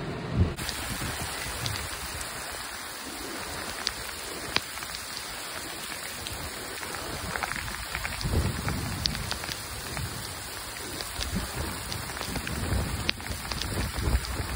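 Heavy rain falling: an even hiss with many sharp ticks of drops striking close by, and a few dull low bumps in the second half.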